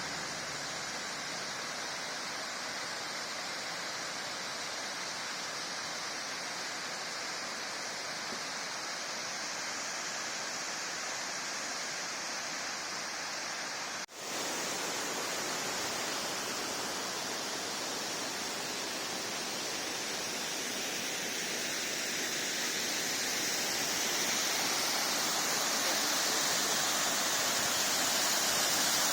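Steady rushing of water falling over a stream's waterfall. It cuts out for an instant about halfway through and then resumes, growing slightly louder near the end.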